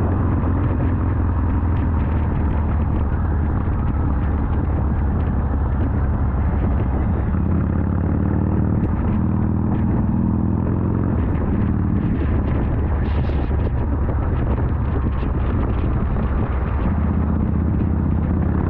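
Large twin-cylinder motorcycle engine running steadily while under way. Its note rises and falls with the throttle between about 8 and 12 seconds in, and again near the end.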